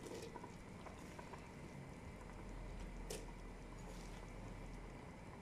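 Quiet bubbling of a pot of tomato stew just coming to the boil, with cooked white beans spooned into it. A sharp click about three seconds in.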